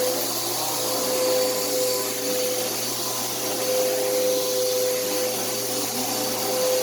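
Bissell CleanView upright vacuum running on carpet: a steady motor drone with a constant mid-pitched whine over a rushing hiss of air, swelling and dipping slightly in loudness.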